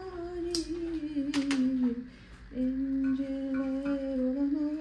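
A woman humming a slow tune in long held notes that slide down and then step up. Three light sharp clicks come in the first second and a half.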